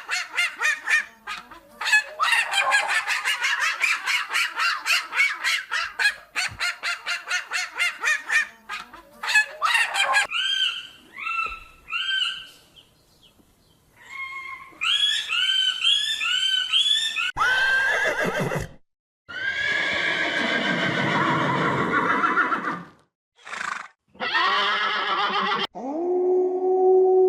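Different farm animals calling one after another: a long fast run of short calls, then groups of short rising calls, then longer drawn-out calls with brief silences between them. A steady ringing tone starts near the end.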